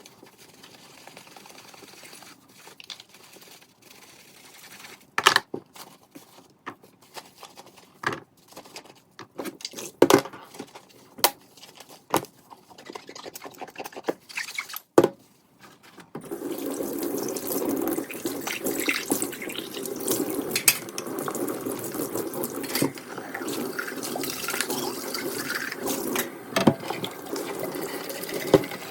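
Dishes and utensils clinking and knocking at a kitchen sink, then a little over halfway through the tap is turned on and water runs steadily while dishes go on clattering under it.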